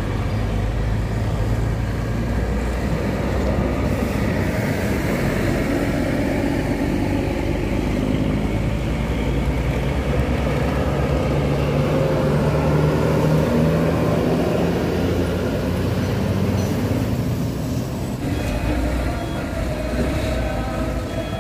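Diesel intercity coach buses driving through a bend one after another, their engines running close by with tyre noise on the road; the engine note climbs as one coach pulls past about midway.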